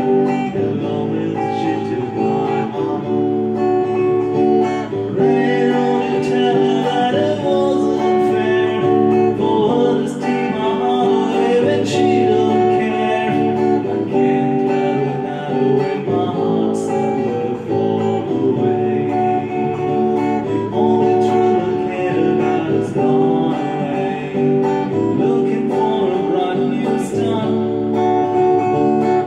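Electric guitar played through a small amplifier: picked chords and melody notes that keep changing every second or two, with sharper plucked accents now and then.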